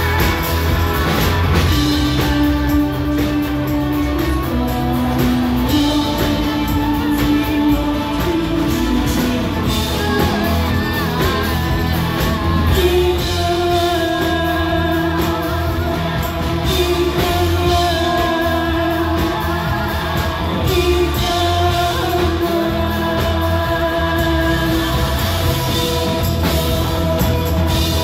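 Live rock band playing loud: a singer holding long notes over keyboards and a heavy bass and drum backing, with the melody stepping up higher about halfway through.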